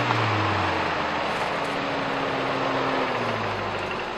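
Toyota 4Runner engine pulling under load up a muddy trail, its pitch holding steady and then easing off and fading about three seconds in as the truck passes. Tyre noise churning through the ruts runs underneath.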